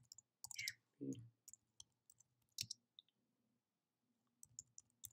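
Faint, irregular clicks of computer keyboard keys being typed, with a slightly louder soft knock about a second in.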